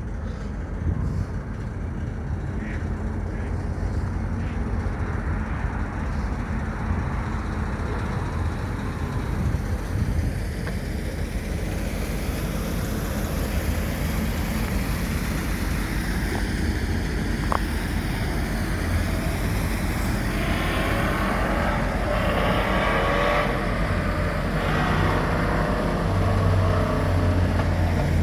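Steady low rumble of road traffic, growing a little louder, with a passing vehicle's noise swelling from about twenty seconds in.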